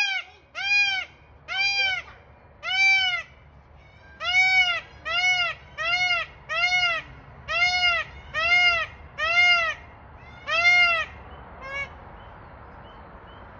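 Indian peafowl calling: about a dozen short, loud, nasal calls, each rising then falling in pitch, repeated in a quick series, ending with one faint call near the end.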